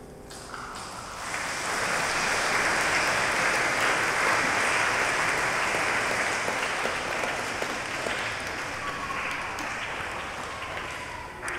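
Audience applauding, swelling about a second in and slowly fading.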